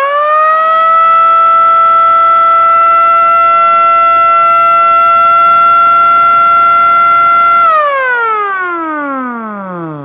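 Small electric motor-driven air-raid-style siren with a flared aluminium horn. Its wail finishes rising in the first second and holds a steady high tone for about seven seconds. Then it falls smoothly in pitch and fades as the rotor winds down.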